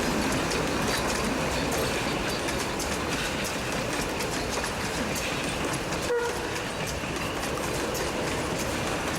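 Puffing Billy's Na class narrow gauge steam locomotive 6A and its carriages running past, the wheels clicking over the rails, with steady rain falling.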